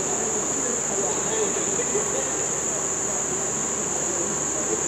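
Steady, unbroken high-pitched chirring of insects over a faint low background murmur.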